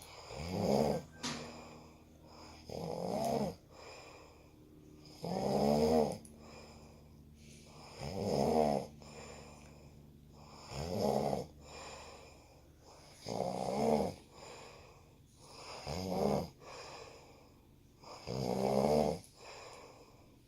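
Snoring: a loud, rattling snore with every breath, about eight in a row at a steady pace of one every two and a half seconds.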